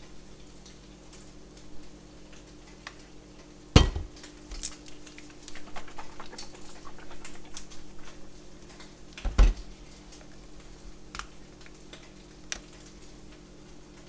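Kitchen handling sounds: a plastic honey bottle and a creamer tub being put down and opened on a countertop, with two sharp knocks about four and nine seconds in and a run of small clicks and rattles between them. A faint steady hum lies underneath.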